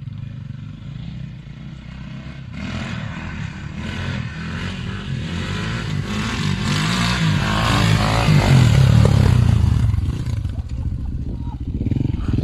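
KTM EXC 450 single-cylinder four-stroke enduro engine running at idle, then revved up, rising to its loudest about eight to ten seconds in before dropping back.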